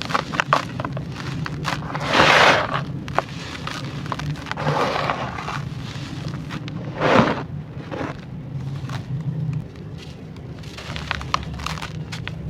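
Gritty, sandy clay crunching and crumbling, with many sharp small cracks and three louder crumbling bursts about two, five and seven seconds in. A steady low hum runs underneath.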